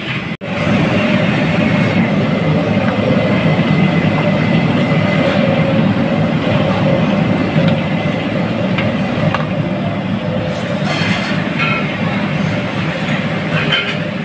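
Steady rushing rumble of a commercial gas wok burner at high flame under a wok of water at a rolling boil, with prawns cooking in it. The sound cuts out for a moment about half a second in, then runs on unbroken.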